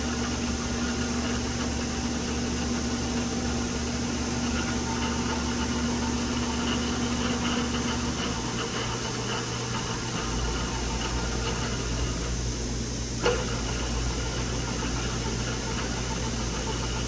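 Drill press running at its slowest speed, turning a tap in a slip-collar attachment into a metal plate: a steady motor hum and machine noise. The low hum shifts in pitch about eight to ten seconds in, and there is a single sharp click about thirteen seconds in.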